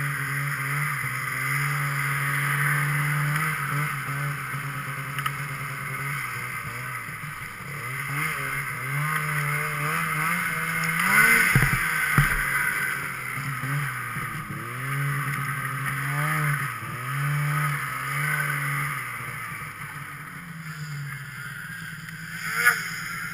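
Snowmobile engine revving up and down as the sled is ridden over snow. About halfway through the revs climb and there are heavy thumps as the sled takes a small jump and lands; the engine then settles to a lower, steadier run, with one sharp knock shortly before the end.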